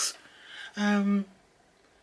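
A woman's voice giving a short, steady hum ("mmm") about a second in, held for about half a second, after which the room goes quiet.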